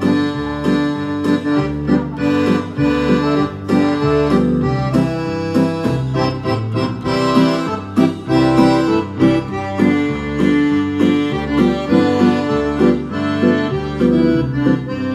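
Roland digital accordion played through a speaker cabinet: an instrumental country tune with a steady, regular bass-note and chord accompaniment, no singing.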